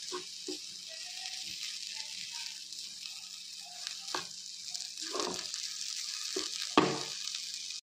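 Grated coconut and masala powder sizzling as they fry in a pan, with a steady hiss and the scrape of a metal slotted spatula stirring them in several strokes, the loudest near the end. The sound cuts off suddenly just before the end.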